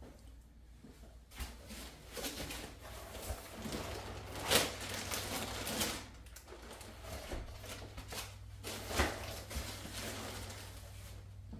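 Clear plastic packaging wrap rustling and crinkling as it is rummaged through by hand, with a louder crackle about four and a half seconds in and another about nine seconds in.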